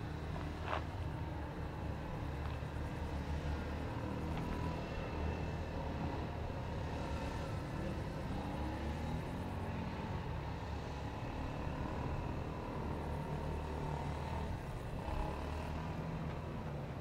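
A steady low engine drone with no clear start or stop.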